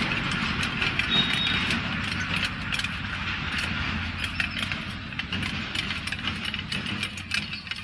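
Sickle hacking and scraping at a sugarcane stalk, with dry cane leaves crackling in many irregular short clicks over a low steady rumble.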